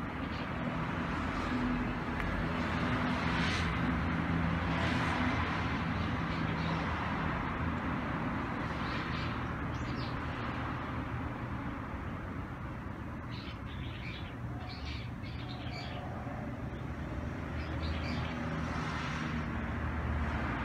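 Outdoor ambience: a steady low mechanical hum, with birds chirping in short runs around the middle and again near the end.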